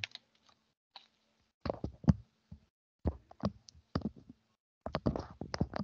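Three short clusters of soft knocks and clicks, roughly a second apart, picked up by a headset microphone, with a faint steady hum in the gaps between them.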